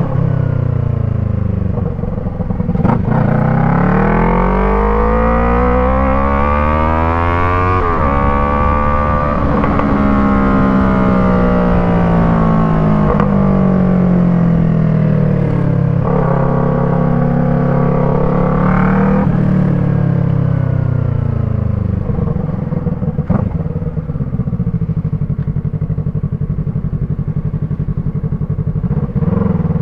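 Yamaha MT-03's parallel-twin engine through an Arashi aftermarket exhaust under hard acceleration, the pitch climbing for several seconds up to a sharp drop about eight seconds in, like a gear change. It then holds, rises briefly again, and eases off to a steady lower note.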